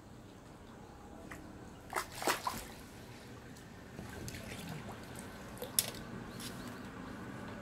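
Small water splashes and drips at the edge of a lake: a cluster of splashes about two seconds in and a single sharp drip near six seconds, over quiet lapping.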